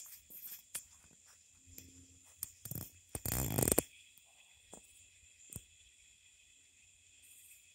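Crickets or similar night insects chirring steadily in a high-pitched chorus. A few faint clicks sound through it, and one loud brief noise, about half a second long, comes a little past three seconds in.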